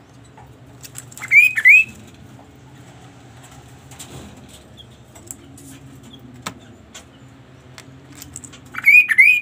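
Caged kaso-kaso songbird calling: a pair of loud, short whistled notes that sweep upward and curl over at the top, about a second in, and the same pair again near the end. Faint clicks and ticks between the calls.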